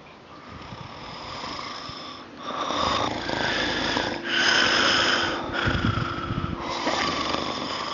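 A person snoring: a run of long breaths about a second each, growing louder over the first few seconds.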